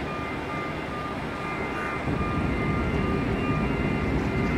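Wind buffeting the microphone during a crane lift, with a faint steady whine from the shore crane's drive machinery; the low wind rumble gets louder about two seconds in.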